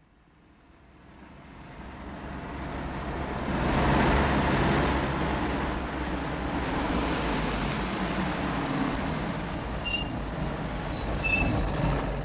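A bus driving along a road toward the listener: its engine and tyre noise fade in from silence, grow loudest about four seconds in, then run on steadily.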